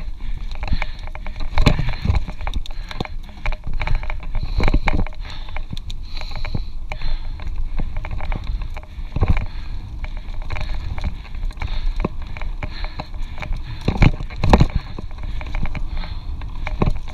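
Mountain bike ridden fast over a dirt forest trail: a constant low rumble of tyres and wind with the bike clattering and rattling, and several hard knocks from bumps, two close together near the end.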